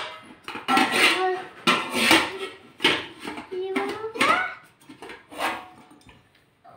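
Metal kitchen utensils clattering: an idli stand's plates and a ladle knocked and set against steel pots in a series of irregular clinks, some of them ringing. The strikes thin out near the end.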